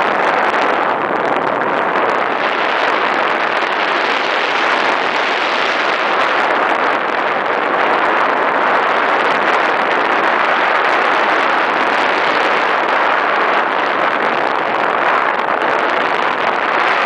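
Steady rush of airflow buffeting a pole-mounted camera's microphone during a tandem paraglider flight, loud and unbroken throughout.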